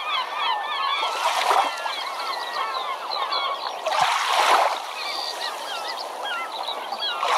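A flock of birds calling, with many short overlapping calls throughout and a louder swell of noise about four seconds in. The sound cuts off suddenly at the end.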